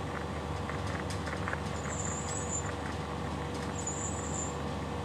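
Steady hiss and hum of an old film soundtrack with faint crackles. Two brief high-pitched chirps come about two and four seconds in.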